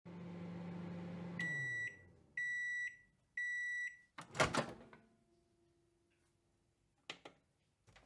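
Microwave oven running with a low hum that winds down, then three high beeps signalling the end of cooking, followed by a clunk as the door opens and two short clicks near the end.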